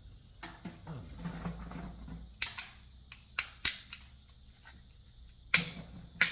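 Sharp cracks and clicks of hand tools breaking apart plastic and metal electrical fittings. The strokes come singly or in quick pairs, a second or so apart.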